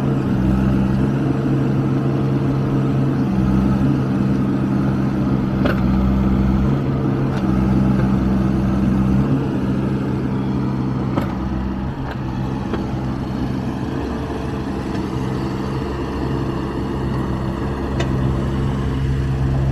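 Hitachi Zaxis 19U mini excavator's diesel engine running steadily, with a few sharp knocks along the way; the engine note eases slightly about twelve seconds in.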